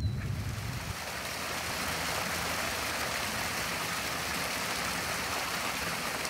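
Steady rushing hiss of running water, even throughout, with no distinct splashes or tones.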